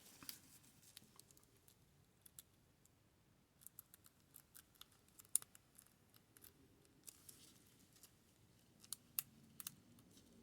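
Faint, scattered metallic clicks and scrapes of a lock pick working the pins of a Yale pin-tumbler lock under tension, with one sharper click about five seconds in.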